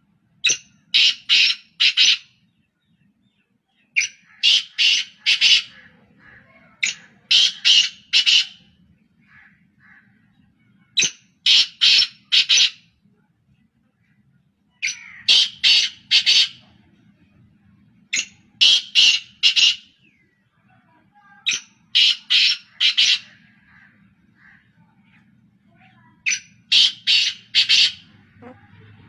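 Black francolins calling: loud, harsh, grating calls of four or five quick notes each, repeated about every three to four seconds.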